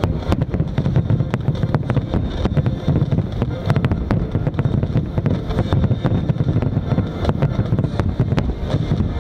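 Barrage of aerial firework shells bursting in quick succession: many sharp bangs and cracks over a continuous low rumble.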